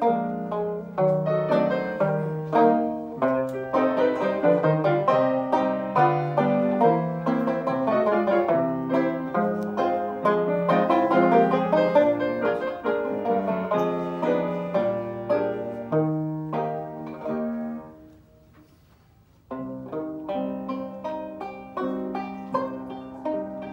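Banjo and grand piano playing a romance together, plucked banjo notes over piano chords. About eighteen seconds in, the music dies away into a pause of a second or two, then the duet starts again.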